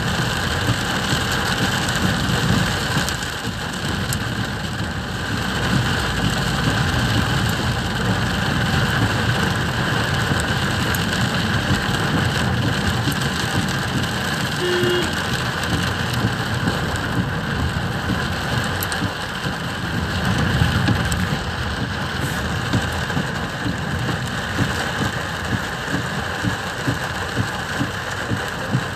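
Torrential rain hitting the roof and windscreen of a moving car, heard from inside the cabin: a steady, dense rush of drops with the car's low running noise beneath.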